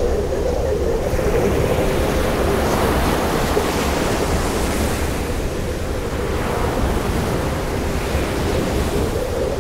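Ocean surf washing on a beach, a steady rush with a swell of hiss through the first half.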